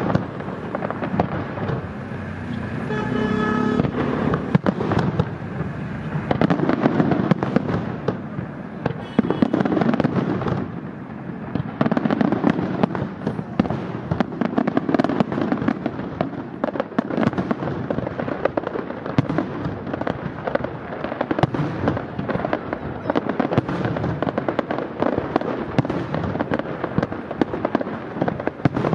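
Aerial fireworks display: a dense, nearly continuous barrage of shell bursts and crackling bangs.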